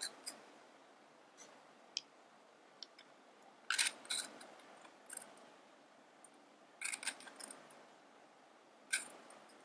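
A tiny knife tapping and scraping on a miniature wooden cutting board as chopped green onion is gathered onto a small plate. The sound is scattered sharp clicks and taps, with the loudest clusters about four, seven and nine seconds in.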